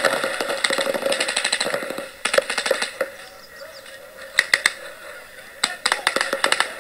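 Paintball markers firing during a speedball game: a fast string of pops for about the first two seconds, then scattered single shots and short bursts.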